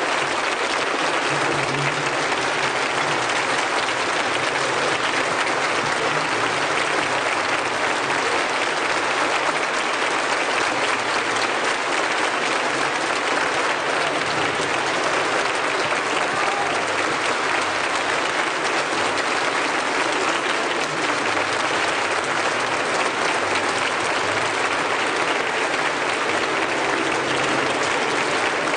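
Concert hall audience applauding steadily: a dense, even clapping from many hands that neither builds nor fades.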